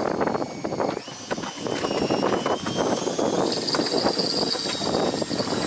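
A hooked chencaru (torpedo scad) thrashing against the boat's side as it is hauled aboard, an irregular run of quick knocks and slaps, over the steady noise of the boat's engine and wind.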